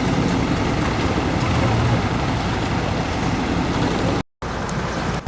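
Diesel train engine running steadily at idle, a low hum under a wash of station noise. The sound cuts out for a moment near the end.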